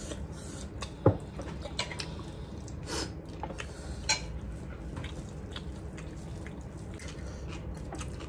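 Close-up eating sounds at a table: chewing and wet mouth clicks while food is eaten by hand from plates, with scattered light clicks of dishes and a sharper knock about a second in.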